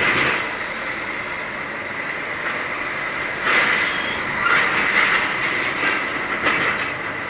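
Cab noise of a lorry rolling slowly: a steady rumble and hiss with a constant high whine, swelling briefly a few times.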